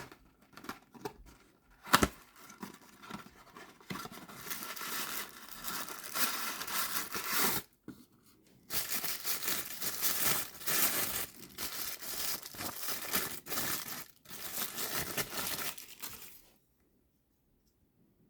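Toy packaging being torn open and crinkled by hand, in long stretches of tearing and rustling with a sharp snap about two seconds in; it stops about sixteen seconds in.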